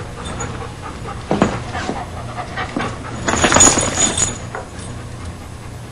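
A dog panting in quick breaths, loudest in a bout about halfway through, over a steady low hum.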